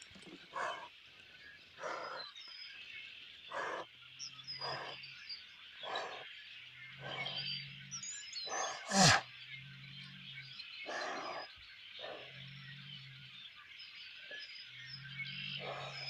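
Bull blowing and sneezing through its nose in short, sharp blasts about every second or so, the loudest about nine seconds in: it is trying to clear a fly from its nostril. Birds chirp faintly in the background.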